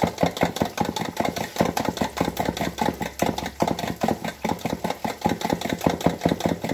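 Raw eggs being beaten by hand in a plastic mixing bowl: a fast, steady clatter of about five strokes a second.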